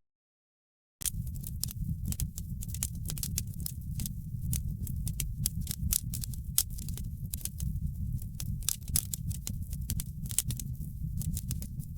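Wood fire crackling in a fireplace: frequent, irregular sharp pops and snaps over a steady low rumble of burning logs. The first second is dead silent before the crackling starts again.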